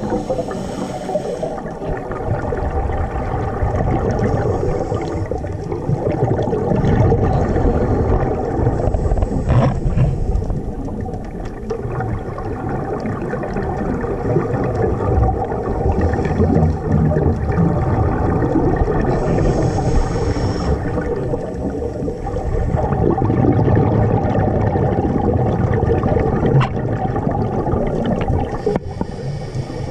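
Underwater noise heard through a diving camera's housing: a steady low rumble of moving water. Scuba regulator exhalation bubbles hiss in short bursts near the start, about two-thirds of the way through and near the end.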